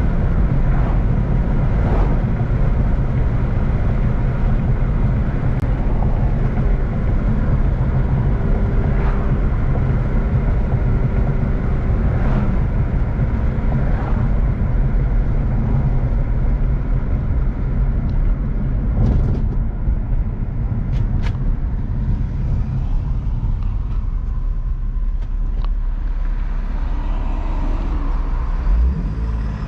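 Infiniti G35's V6 engine and exhaust droning steadily while cruising, mixed with road and tyre noise.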